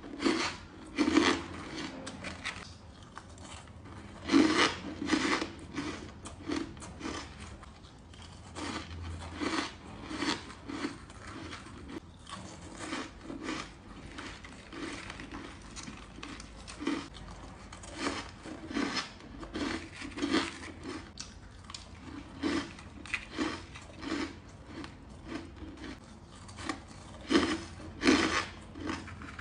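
Ice being bitten and chewed close to the microphone: a long run of sharp, crunchy bites and chews, some coming in quick clusters.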